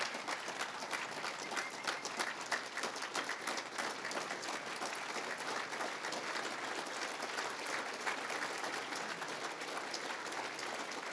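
Standing banquet audience applauding steadily after a speech.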